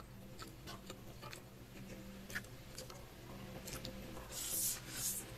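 Eating sounds of a mouthful of saucy instant noodles: soft wet clicks of chewing, then two short slurps about four and a half seconds in as a handful of noodles is pushed into the mouth.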